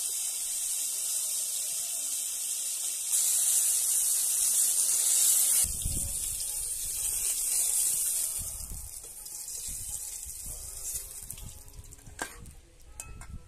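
Eggplant pieces sizzling as they fry in hot mustard oil in a kadai. The sizzle fades after about eight seconds as the fried pieces are lifted out, with a few light clicks of a metal spatula against the pan near the end.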